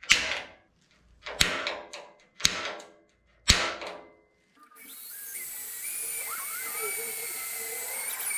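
Four sharp metallic snaps about a second apart, then a Makita 18V cordless drill running steadily from about five seconds in, drilling into the edge of the table saw's side table.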